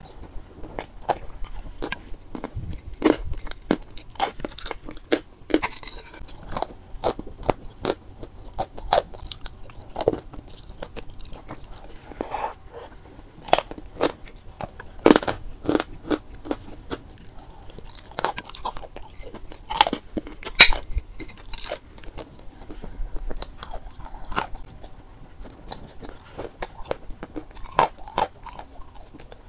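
Chalk pieces being bitten and chewed, with irregular sharp crunches.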